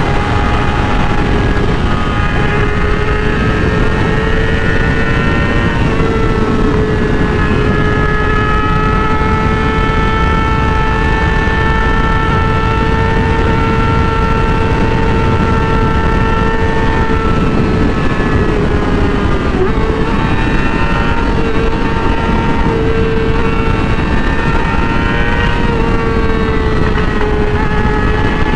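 Yamaha R6's inline-four engine running under way at high, nearly steady revs, with a heavy rush of wind underneath. The pitch dips briefly about two-thirds through, then rises and falls a little near the end.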